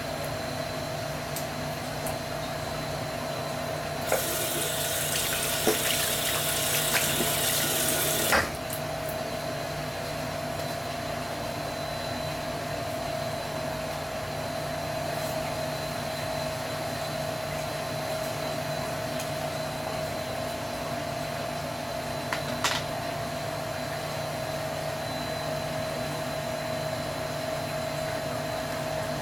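A steady machine hum with a few fixed tones runs throughout. About four seconds in, a loud rushing hiss starts, lasts about four seconds and cuts off suddenly. A single sharp click comes near the end.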